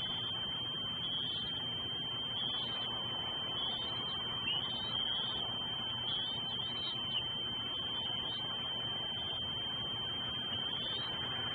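A steady high-pitched whine runs without a break over a constant hiss in the nest cam's audio. Faint short chirps come and go through it.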